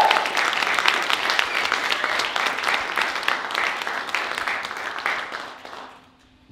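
Audience applauding, with a short whoop right at the start; the clapping dies away about five to six seconds in.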